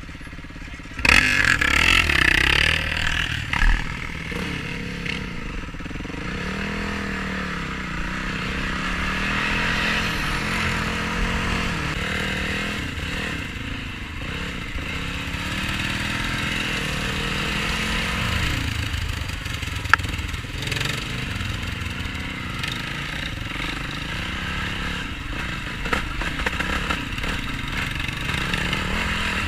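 Yamaha YFZ450R quad's single-cylinder four-stroke engine revving up and down under riding. A loud burst comes about a second in, and there is one sharp click about two-thirds of the way through.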